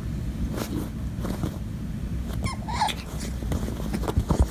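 A puppy gives one short, wavering whine about two and a half seconds in, over a steady low rumble, with a few soft knocks near the end.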